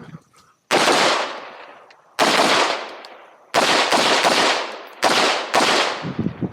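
Semi-automatic competition rifle with a muzzle brake firing about seven shots at uneven spacing: two single shots about a second and a half apart, then a quick string of three, then two more. Each shot is followed by a long fading echo.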